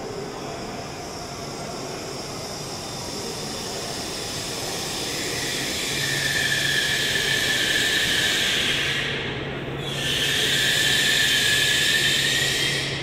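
N700S Shinkansen train moving along the station platform: a rushing hiss that grows louder, with a steady high-pitched whine on top that dips briefly about ten seconds in.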